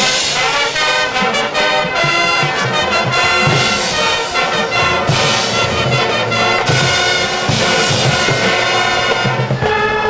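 High school marching band playing a loud full-ensemble passage led by trumpets and trombones, with percussion accents. Near the end it settles into a sustained held chord.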